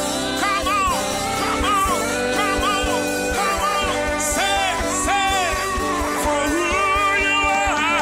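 Live gospel praise music: a singer's voice gliding through a worship melody over a band's sustained chords and a steady beat.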